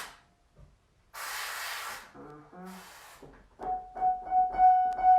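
A long forceful hissing breath, then a short low vocal sound. From about three and a half seconds in, a piano plays repeated chords, about three a second.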